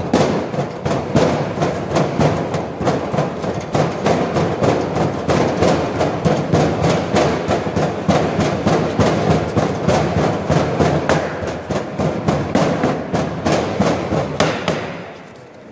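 Hand sand rammer pounding green moulding sand into a wooden flask: rapid, steady thuds about four to five a second that stop shortly before the end. This is the sand being compacted around the pattern to form the mould.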